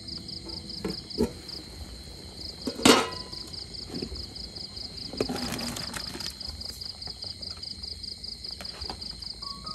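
Crickets chirping steadily in fast, high-pitched pulses, with a few light knocks around a second in and one loud metallic clank just before three seconds as the aluminium lid comes off the pot of boiling soup.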